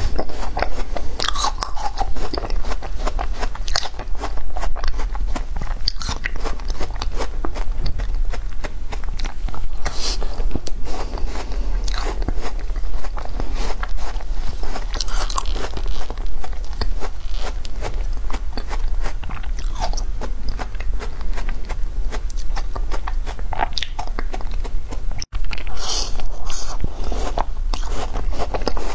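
Close-miked biting and crunching of foam ice: crisp cracking bites and chewing, irregular and continuous.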